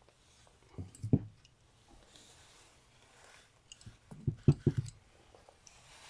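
A few soft thuds and knocks as objects are handled and set down on a work surface, in two short clusters: about a second in and again around four and a half seconds in.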